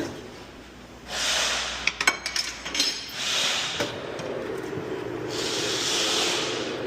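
Three bursts of hissing, each about a second long, and a quick run of metallic clinks about two seconds in, from work on a motorcycle tire and tube on its rim.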